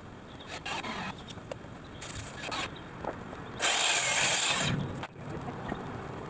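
A power saw cutting through a wooden siding board in one loud cut of about a second, a little past the middle, with two shorter, quieter noisy bursts before it.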